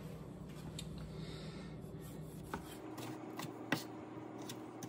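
Knife cutting Roma tomatoes on a wooden cutting board: scattered light taps of the blade against the board, the sharpest about three and a half seconds in, over a faint low hum in the first half.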